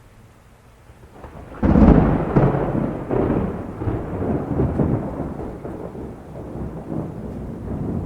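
A thunderclap: a sudden loud crack about one and a half seconds in, followed by a long low rumble of thunder that slowly fades.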